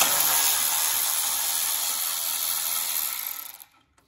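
Cordless electric ratchet running steadily for about three and a half seconds, backing a bolt out, then stopping abruptly.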